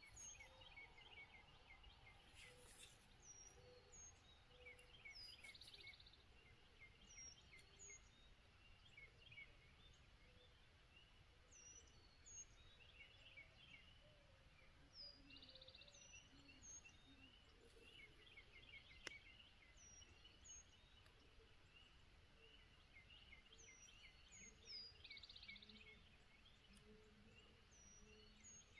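Faint songbirds calling, with many short chirps repeated in phrases over a quiet background hiss.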